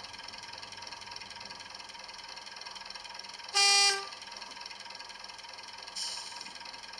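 The sound decoder in a model class 121 diesel railcar sounds one horn toot of about half a second, played through the model's small speaker over its quiet running sound. A short hiss follows about six seconds in.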